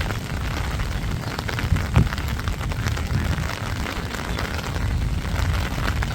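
Heavy downpour: dense rain falling and pattering on hard surfaces, with one louder knock about two seconds in.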